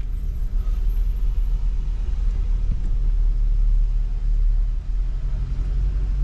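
A car driving, with a steady low rumble of road and engine noise.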